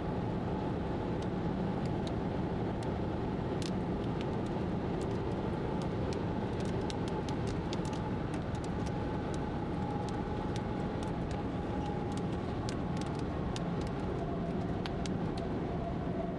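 Car driving, heard from inside the cabin: a steady engine hum and road noise. From about three seconds in, scattered sharp ticks of raindrops hit the windshield.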